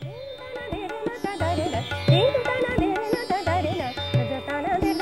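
Indian classical music: a sliding, ornamented melody over a steady tanpura drone, with tabla strokes and low notes from the bass drum.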